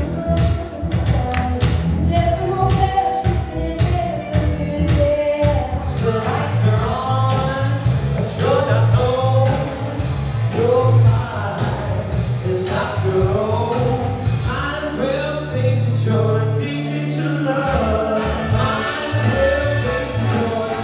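Several performers singing live over a recorded backing track with a steady beat.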